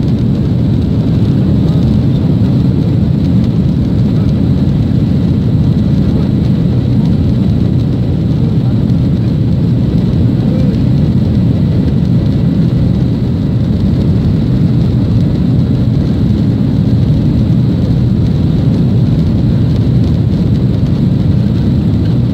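Steady cabin noise inside a flydubai Boeing 737 taxiing: a loud, even low rumble of the jet engines at taxi power and airflow, with a faint thin high whine over it.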